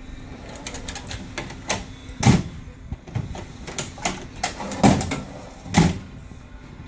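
Door handle and its spring-loaded plunger latch being worked by hand: a series of sharp clicks and knocks, with three louder clacks about two, five and six seconds in.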